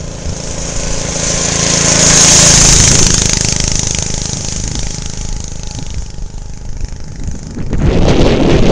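Homemade ATV's 6 hp Briggs & Stratton single-cylinder engine running as the machine drives past. It grows louder to a peak two or three seconds in, then fades as it moves away. Wind buffets the microphone near the end.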